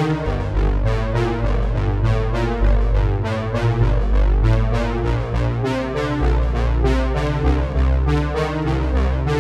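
Background music: a synthesizer and keyboard track with a steady beat and heavy bass.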